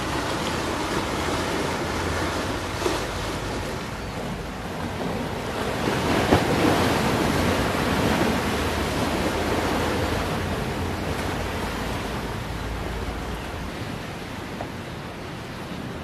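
Strong wind rushing through casuarina trees at the shore, with a low rumble of wind on the microphone. It swells to a gust about six seconds in and then slowly eases.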